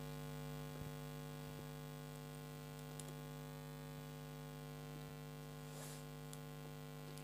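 Faint steady mains hum: an unchanging electrical buzz made of many evenly spaced tones.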